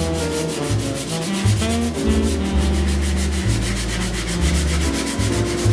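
Wood veneer being hand-sanded with a Festool sanding sponge: rapid, even back-and-forth strokes, over background music.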